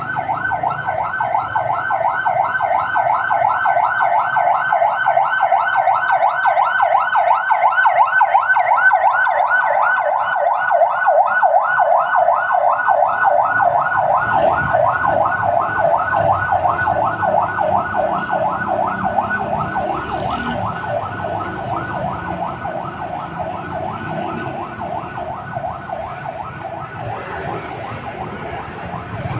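Ambulance siren in a fast yelp, its pitch sweeping up and down several times a second, passing by. It is loudest about a third of the way through and fades steadily as it moves away, with road traffic noise underneath in the second half.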